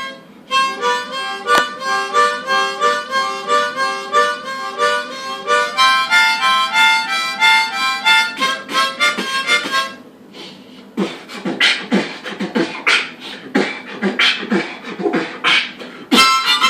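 Harmonica played in short rhythmic chords and notes for about ten seconds, then it stops and beatboxing takes over alone: a run of quick mouth-made drum hits and clicks. The harmonica comes back in near the end.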